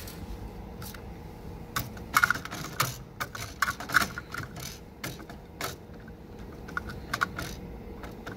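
Irregular plastic clicks and knocks of a 3D-printer filament spool being handled on its side-mounted spool holder.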